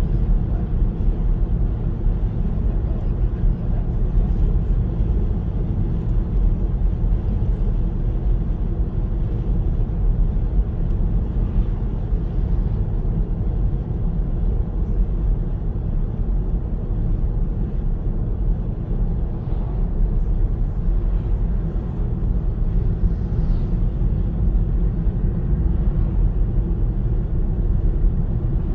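Steady low rumble of a car driving at expressway speed, tyre and engine noise heard from inside the cabin.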